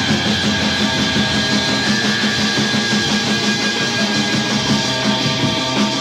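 Rock band recording playing, with guitar at the front, loud and steady throughout.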